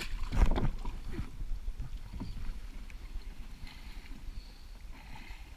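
Splashing, sloshing steps of someone wading through shallow water and mud while hauling a loaded canoe along a narrow creek. The loudest splashes come in the first second, and the sound is quieter and more uneven after that.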